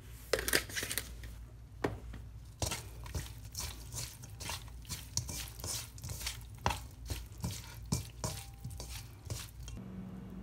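Raw shrimp being tossed by hand in a gloved hand in a stainless steel mixing bowl: irregular wet squishes and light taps against the metal, several a second, stopping near the end.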